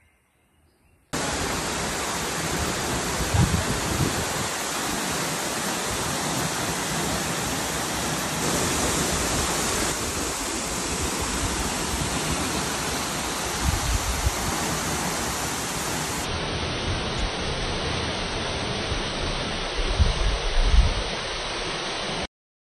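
Waterfall rushing steadily into a rock pool, starting abruptly about a second in and cutting off just before the end, with a few low bumps on the microphone.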